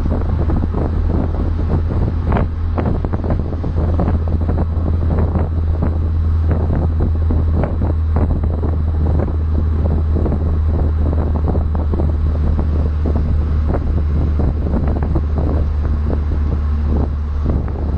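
BMW Z4 E85 2.0i on the move: a steady low engine and road drone that holds an even pitch, with wind buffeting the phone's microphone in irregular gusts.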